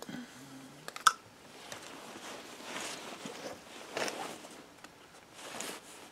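Hands handling motorcycle engine parts on a workbench: one sharp metallic clink with a short ring about a second in, then quieter clicks, taps and rustling of clothing.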